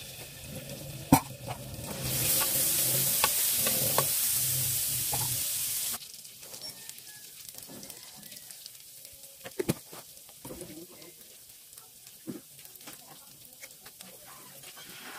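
Chopped garlic and ginger frying in oil in a nonstick pan. A sharp click comes about a second in, then a loud sizzle starts as chili sauce hits the hot oil and cuts off suddenly a few seconds later. After that a low sizzle continues with scattered light clicks.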